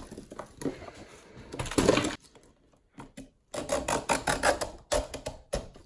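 Support material being scraped and snapped off a 3D-printed plastic frame: scraping and rapid crackling, a short burst about two seconds in and a longer run of quick clicks from about three and a half seconds.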